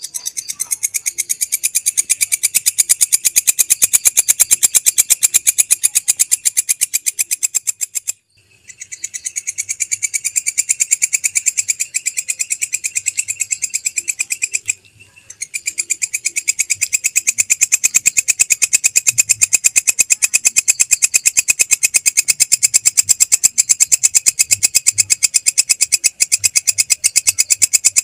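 Belalang kecek katydid calling: a long train of fast, high-pitched clicking pulses. It breaks off about eight seconds in and again near fifteen seconds, and each time starts up softly and builds back to full loudness.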